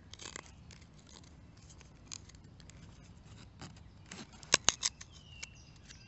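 Leatherman C33X folding knife blade cutting a notch into a wooden stick: scattered light cuts and scrapes, with a cluster of three or four sharper cuts a little after four seconds in.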